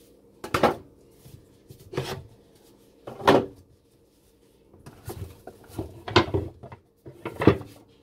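Handling of a heavy wooden soap loaf mold on a table: about half a dozen short knocks and scrapes of wood, with quiet gaps between.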